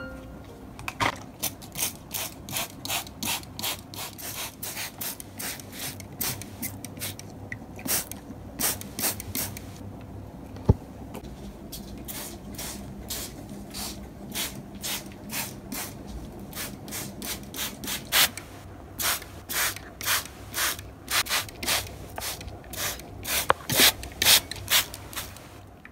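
Plastic trigger spray bottle misting houseplants: quick squirts of spray in runs of about two a second, with short pauses between runs. A single sharp click about ten seconds in.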